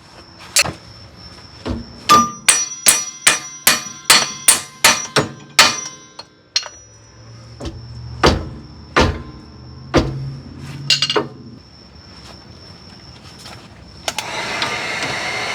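Hammer blows on steel suspension parts, a fast run of a dozen or so ringing strikes followed by a few slower, heavier blows, to knock out the old control arm. A steady rushing noise starts near the end.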